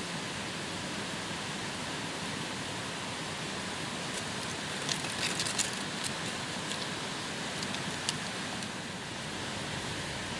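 Wood campfire crackling: a cluster of sharp pops about five seconds in and a single pop near eight seconds, over a steady rushing background noise.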